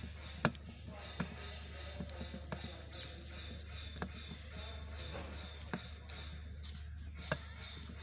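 Scattered light clicks and taps of a screwdriver working the adjustment screw of a metal dial instrument, about six in all, over a steady low hum.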